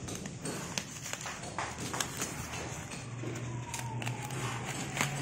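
A knife slitting and pulling at the plastic wrapping and tape of a parcel: scattered crackles and ticks. A steady low hum joins about three seconds in.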